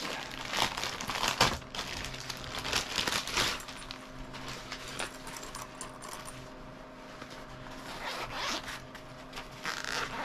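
Plastic packaging rustling as a fabric cord storage bag is handled, then the bag's zipper being pulled open near the end, over a steady fan hum.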